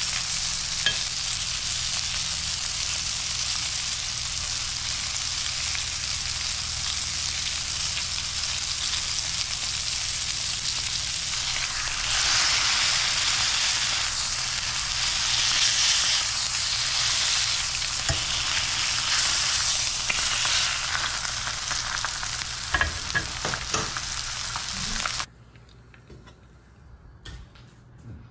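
Floured rainbow trout fillets frying in hot oil in a pan: a steady sizzle that swells louder for several seconds about halfway through, with a few light knocks near the end. The sizzle then cuts off abruptly.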